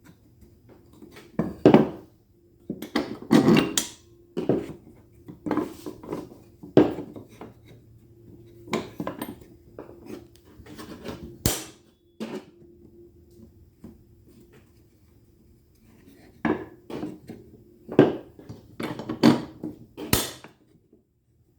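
Irregular clicks, knocks and scrapes of mitred wood pieces and a metal corner clamp being handled and fitted together, over a faint steady hum.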